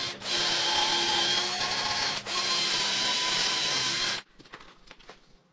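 Angle grinder's abrasive disc cutting through a rusted steel bolt, a harsh steady grinding over a motor whine. It eases off briefly twice, then stops abruptly about four seconds in, leaving a few faint clicks.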